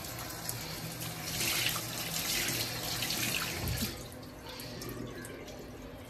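Water running from a tap onto a microfibre cloth being rinsed and squeezed in a sink, splashing into the basin. The splashing eases about four seconds in.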